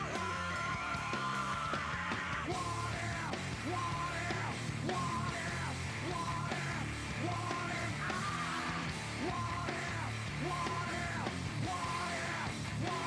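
Rock music with a steady beat and shouted vocals, serving as the highlight reel's soundtrack.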